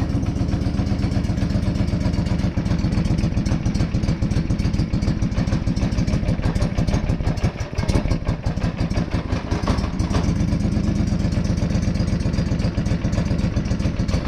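John Deere 425 garden tractor's 20 hp liquid-cooled V-twin engine running steadily just after starting. Exhaust is escaping through a hole in the muffler where its spot welds have broken, the exhaust leak the owner had been hearing.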